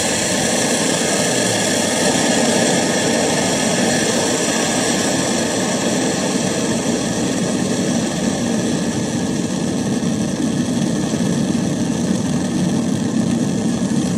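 MSR Dragonfly liquid-fuel stove burning at its pressurised burner, a steady, loud rushing hiss.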